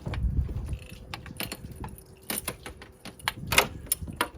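Hard clicks and metallic clinks of parts being handled and fitted into place, with a low rumble during the first second; the loudest clink comes about three and a half seconds in.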